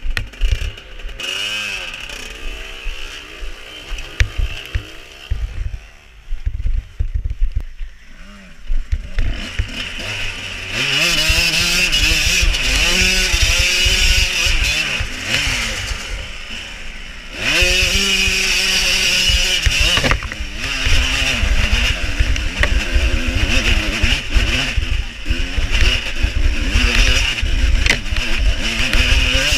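1989 Yamaha YZ125 two-stroke dirt bike engine revving up and down, lower and quieter for the first several seconds, then loud from about ten seconds in as it rides along the trail, with a brief drop in revs near the middle.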